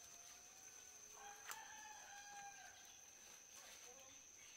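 A rooster crowing faintly, one drawn-out crow held about a second in, with a single sharp click partway through it.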